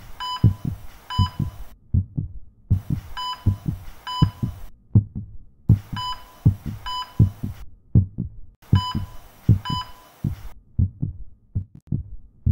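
Deep rhythmic thumping, several thuds a second without a break. About every three seconds a hiss rises for a couple of seconds, carrying two short high beeps each time.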